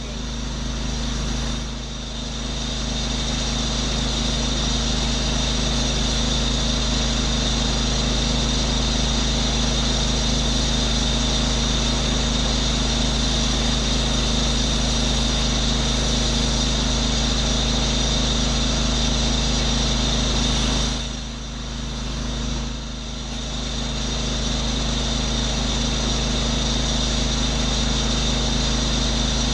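Pressure washer rig's engine and pump running steadily under load, with a spray hiss, dipping briefly near the start and twice about two-thirds of the way through.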